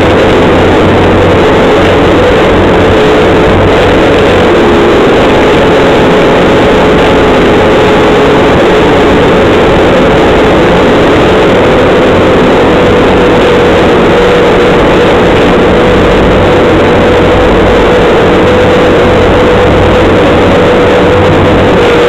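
Bobcat skid steer loader running and driving, heard loud from inside its cab: a steady engine drone with a whine that creeps slowly up in pitch.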